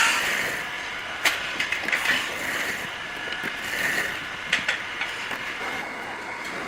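Mechanical workshop noise: a steady hiss with sharp metallic clicks and knocks now and then.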